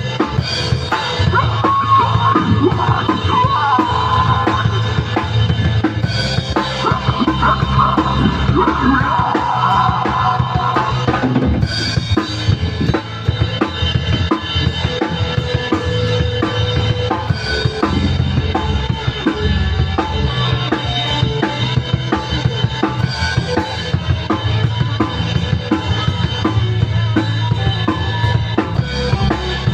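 A band playing an instrumental passage of the song: a drum kit with bass drum and snare driving a steady beat over bass and guitars, with a wavering lead melody for the first ten seconds or so.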